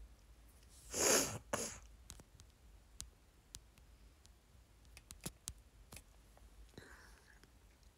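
A short hissing rush of noise about a second in, then scattered small clicks and taps of small objects being handled.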